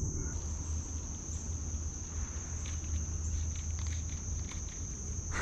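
Steady high-pitched chorus of insects in the riverside trees, one unbroken shrill tone, over a constant low rumble.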